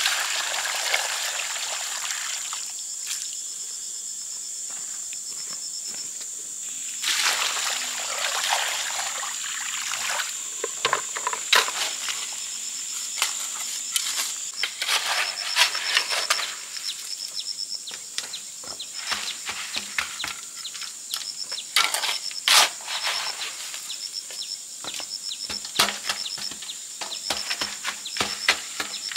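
Water pouring from a plastic bucket onto a heap of dry cement mix, then a steel shovel scraping and chopping through the wet mortar in many short scrapes and knocks. Insects buzz steadily in the background.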